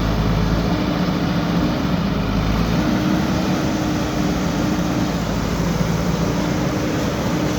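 Backhoe loader's diesel engine running steadily, a low hum whose pitch lines waver slightly as the machine works.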